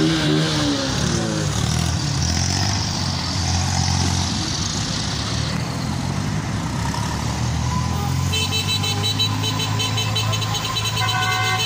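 Tractor engines running steadily as the convoy passes close by, one engine's pitch rising and falling right at the start. From about two-thirds of the way in, a high, rapidly pulsing electronic horn tone joins over the engines.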